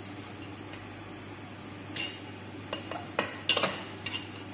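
A utensil scraping and clinking against a glass baking dish while a piece of baked tajine is cut out. A handful of sharp clinks begin about two seconds in, the loudest about three and a half seconds in.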